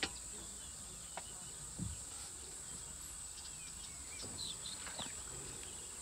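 Steady high-pitched drone of insects in the bush, with scattered short bird chirps and a few faint clicks.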